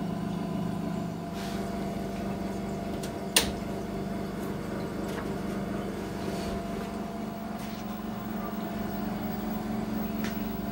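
Steady electrical hum from a 1957 Sylvania 17-inch tube television switched on and warming up, with a single sharp click about three and a half seconds in.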